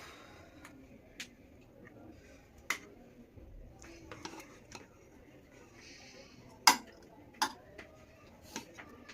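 Scattered clinks and knocks of kitchen utensils against cookware, about seven in all, the loudest about two-thirds of the way through.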